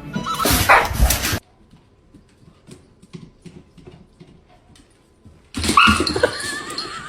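A dog barking and whining, in two loud bursts with a quiet stretch between them; the second burst carries a high, wavering whine.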